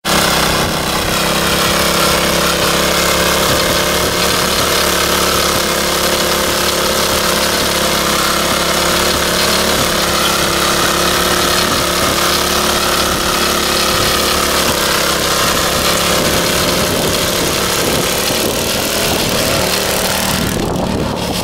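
Vintage Troy-Bilt Horse rear-tine tiller, its single-cylinder engine running steadily under load while the tines churn through hard, dry soil. The sound dips briefly near the end.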